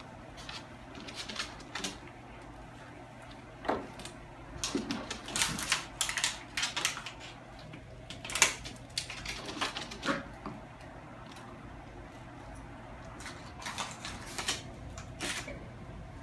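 Puppies scrambling and wrestling on and around a round wooden wobble board: irregular knocks and clatters of the board tipping and of claws scrabbling on it, with a few brief puppy noises. The sharpest clack comes about halfway through.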